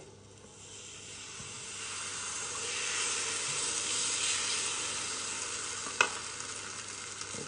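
Takoyaki batter sizzling as it is poured into a hot, oiled takoyaki pan over a gas burner. The sizzle builds over the first few seconds as more batter goes in, then slowly eases. The metal ladle knocks once, sharply, about six seconds in.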